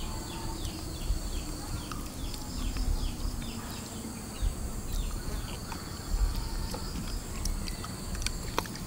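Outdoor insect chorus: a steady high buzz with a short falling chirp repeated about two to three times a second, fading out after about six seconds.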